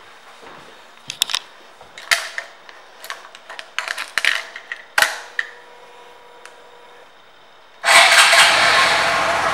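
A few sharp clicks and knocks as the handlebar controls are handled. Then, nearly eight seconds in, the 2018 Honda Grom's 125 cc single-cylinder engine starts suddenly and runs on, easing slightly in level as it settles.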